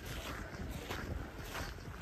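Wind buffeting the microphone, a steady low rumble with a rough hiss over it.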